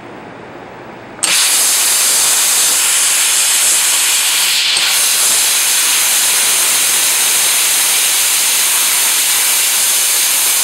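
OZ-PEN CO2 snow cleaner's nozzle spraying a jet of carrier gas laden with CO2 snow at the end face of a fiber-optic connector. It comes on suddenly about a second in as a loud, steady hiss.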